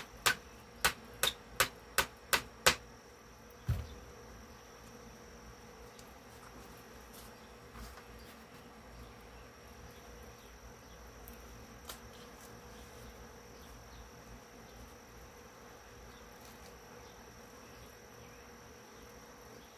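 Light hammer taps, about seven sharp strikes at roughly three a second, driving a stubborn fastener into a drilled hole in a wooden speaker cabinet. Then comes one dull thump, and after it only a faint steady hum.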